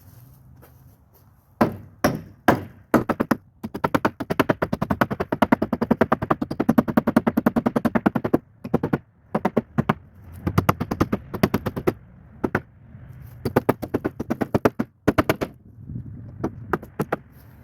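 Rapid runs of sharp knocks on wood, several a second, coming in bursts separated by short pauses, from tool work on a wooden shed wall.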